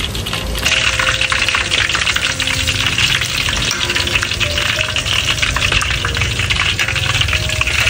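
Fish cakes frying in hot oil in a pan, a dense crackling sizzle that jumps up sharply just under a second in and then keeps on steadily.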